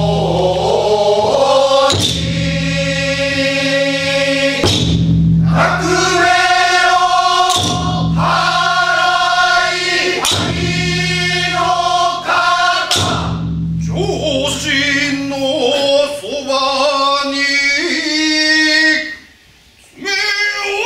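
Men's chorus singing Awaji danjiri uta, the chanted festival song in the jōruri style, with long held notes. The singing breaks off about nineteen seconds in.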